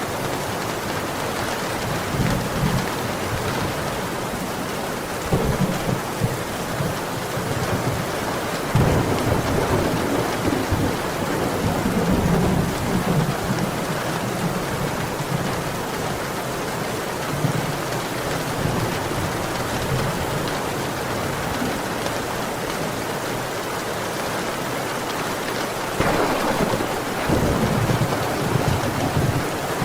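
Steady downpour of heavy rain, with low rolls of thunder rumbling up several times, the longest about nine seconds in and another near the end.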